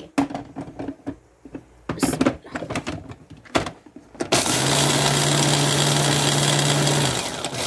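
Knocks and clicks as the grinder jar is set in place and its lid closed. A little past halfway the electric food processor's motor starts with a steady hum and grinding noise, coarsely crushing roasted dried red chillies and garlic. It stops briefly near the end, then starts again.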